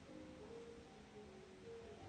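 Faint background music: a slow, soft melody of held notes at changing pitches.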